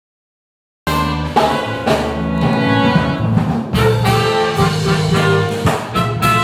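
Band with a horn section of trumpets, trombone and saxophone playing a brassy jazz-rock tune. It starts suddenly about a second in and plays on steadily.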